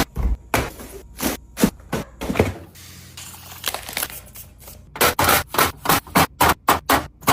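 Food containers and packages being set down and arranged in a refrigerator: a run of sharp knocks and clicks with some scraping, thinning out about a third of the way in and coming thick and fast near the end.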